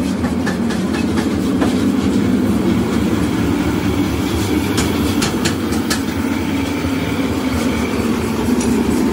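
Steady loud rumble of forge-workshop machinery, with scattered sharp metallic clicks and clinks over it.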